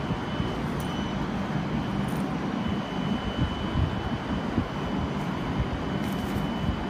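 Steady low rumble of a Shinkansen train approaching along the platform track, with a faint steady high tone over it.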